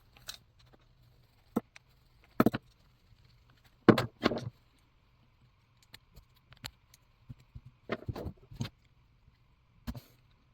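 Scattered clicks and light metallic taps of small hand tools and carburetor parts being handled while a chainsaw's diaphragm carburetor is taken apart, with the loudest knocks about two and a half and four seconds in.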